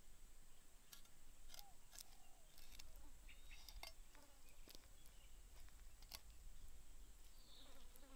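Faint scattered clicks and taps of a knife slicing through raw mackerel tuna on a wooden chopping board.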